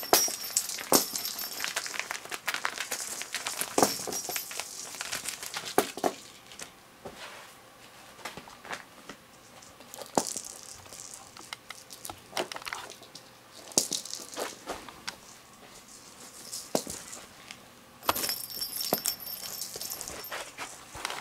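Cat toys being handled on a carpet: many small clicks, rattles and crinkling, with two short bursts of high jingling, near the start and near the end, from the bells inside the plastic lattice balls.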